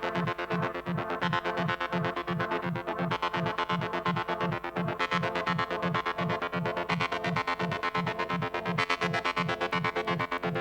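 Electronic dance music with a steady pulsing bass and sustained synthesizer tones.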